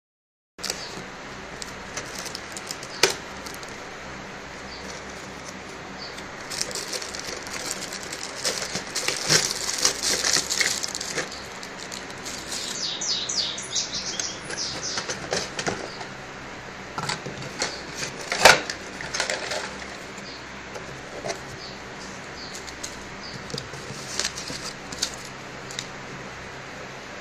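Robotic toy bird and its packaging being handled: intermittent rustling and fluttering in patches, with a few sharp clicks, the loudest about a third and two thirds of the way in.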